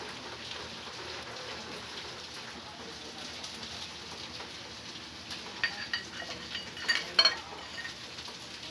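A steel spoon clinking against stainless steel bowls and plates, a handful of short, ringing metallic clinks in the second half, the loudest a little before the end, over a steady background hiss.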